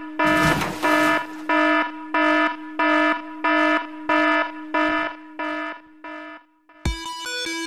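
Alarm-style warning beep sound effect: a pitched tone pulsing on and off about one and a half times a second, fading toward the end. There is a short hiss near the start, and music begins near the end.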